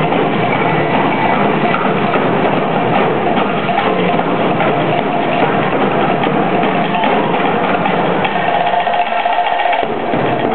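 Tahitian drum ensemble playing a fast, dense, continuous rhythm, with rapid strokes packed closely together.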